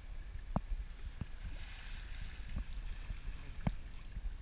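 Water rushing past the bow of a sailboat under way, with wind rumbling on the microphone and a few short knocks, the sharpest about half a second in and near the end.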